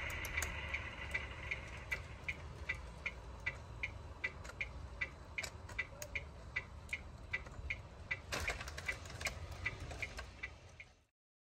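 Even, rapid ticking, about two and a half ticks a second, over a low rumble, with a few sharper clicks; it all stops abruptly near the end.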